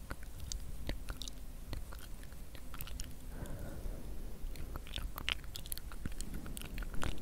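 Fingers picking and rubbing a wad of fluffy white fibre close to the microphone: a dense, irregular run of small crisp crackles and clicks.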